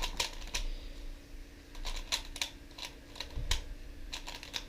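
A Pyraminx speed puzzle being turned quickly by hand: a string of sharp, irregular plastic clicks as its layers and corners snap round, showing off its smooth turning and corner cutting.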